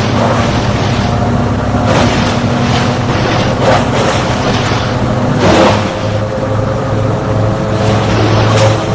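Wood chipper running with a steady engine hum, broken by several short crunching bursts as material is fed through and chipped.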